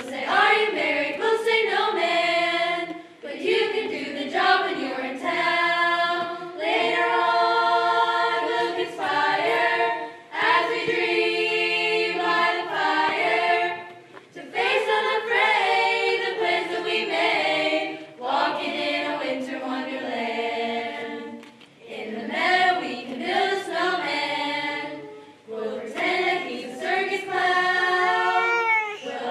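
High school choir of mostly female voices singing together, in phrases with brief breaths between them.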